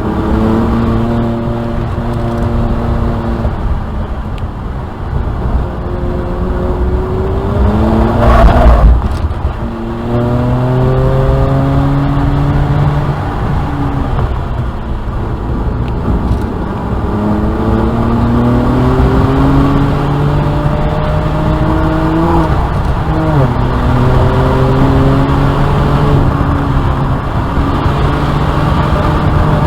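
BMW 335i's N54 twin-turbo inline-six pulling hard, its pitch climbing under acceleration several times and falling back between pulls, with a quick drop and recovery a little over twenty seconds in. A brief loud rushing burst comes about eight and a half seconds in.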